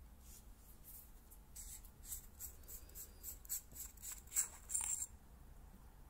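Threaded tail cap of a Convoy M4U flashlight being unscrewed by hand: a series of short, scratchy scrapes from the threads, growing louder and closer together before stopping about five seconds in.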